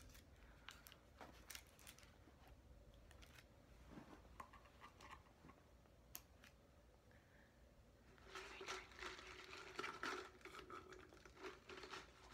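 McDonald's food packaging being handled: paper and plastic rustling and crinkling with scattered small clicks, growing into steadier crinkling about two-thirds of the way in.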